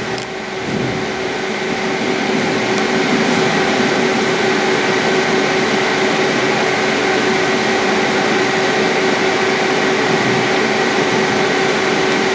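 Running noise inside a moving train carriage: a steady rush with a constant hum of several held tones.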